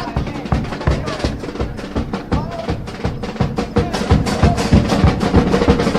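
Chirigota carnival band playing an instrumental passage between sung verses: drums, bass drum among them, keep a quick, steady beat under a melody.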